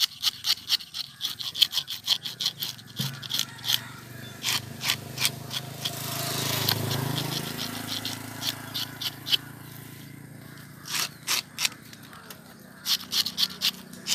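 A hand-held metal fish scaler raking scales off a whole fish, in quick scraping strokes about four a second. The strokes thin out in the middle and come in quick runs again near the end. A low hum swells in the background in the middle.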